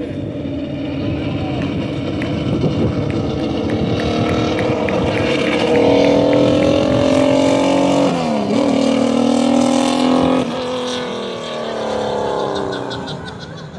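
Turismo Carretera race car engine under hard acceleration, climbing in pitch and loudness as it approaches, with a brief dip and recovery in pitch about eight seconds in. The sound drops off sharply and falls in pitch as the car goes by and away.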